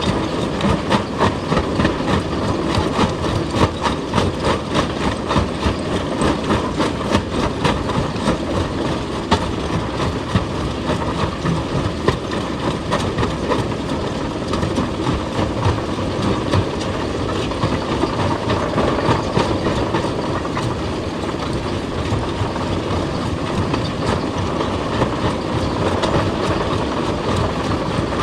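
Heavy excavator working: its engine runs steadily under a fast, continuous series of hard knocks and clanks of metal against rock.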